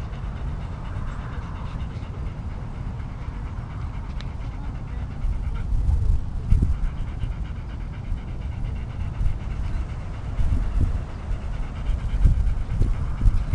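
A dog panting, with irregular low rumbles of wind buffeting the microphone that grow stronger from about five seconds in.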